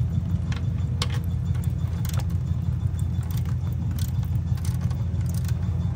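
Scattered metal clicks and clinks of a socket wrench turning out an oil pan drain plug, over a steady low rumble.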